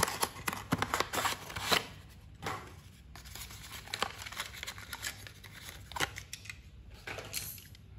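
Small cardboard window box of a toy car being opened by hand, its grey inner tray scraping and clicking as it slides out of the sleeve. The handling comes in short, irregular bursts, busiest in the first two seconds.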